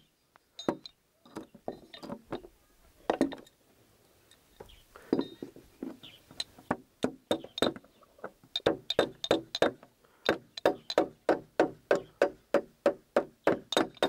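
Claw hammer driving a nail into a wooden board of a transitional beehive box to fasten it firmly. A few scattered taps, then from about seven seconds in a steady run of blows, about three a second.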